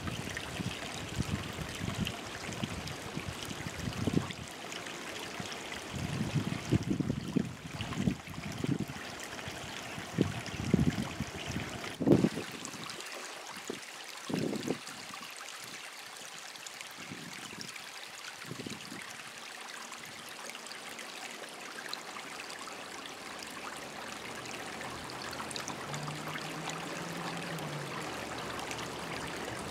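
Shallow rocky creek trickling over stones in a steady wash of water sound, with irregular low rumbles through roughly the first half.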